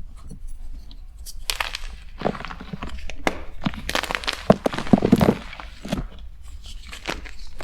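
Close-miked crunching and crumbling of a block of BSN gym chalk: irregular crisp cracks and crunches that come thicker and faster through the middle.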